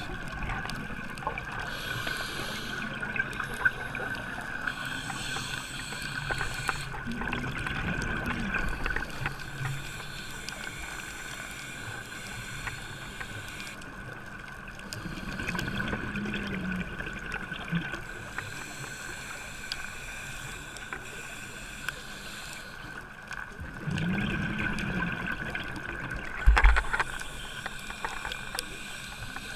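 Muffled underwater sound picked up through a diving camera's housing: a steady high whine over a low wash, with surges of scuba exhaust bubbles from the diver's regulator about every eight seconds. A sharp knock sounds near the end.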